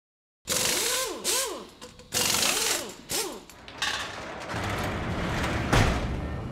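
Mechanical sound effects for an animated title sequence: four short bursts of whirring and ratcheting, each with a whine that rises and falls in pitch. Then a low rumble builds to a heavy hit near the end and dies away.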